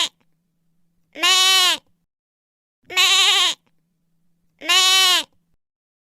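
A lamb bleating: the end of one bleat right at the start, then three more, evenly spaced, each under a second long with a wavering, quavering pitch.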